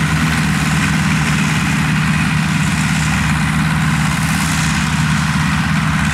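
Diesel engines of rice combine harvesters cutting rice, together with a tracked grain carrier, running steadily with a constant low hum.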